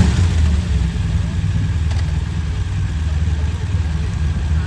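Several police motorcycles' engines idling together, a steady, low engine note.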